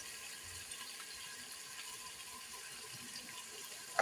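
Faint steady hiss of food cooking in a pot on the stove.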